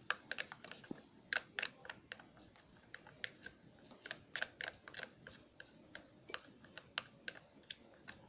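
Chopsticks clicking and tapping against a bowl while stirring glue and water into slime: quick, irregular, fairly faint taps, a few a second.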